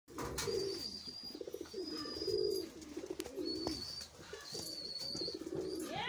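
A flock of domestic pigeons cooing, with low warbling coos overlapping one after another. A thin, steady high whistle comes and goes about four times.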